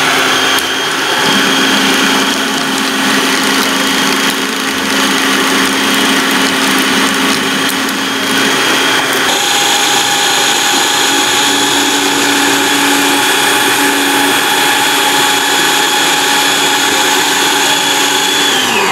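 Food processor motor running steadily with a whine, whipping instant coffee, sugar and hot water into dalgona foam. The tone changes abruptly about nine seconds in, and at the very end the motor winds down with a falling pitch as it is switched off.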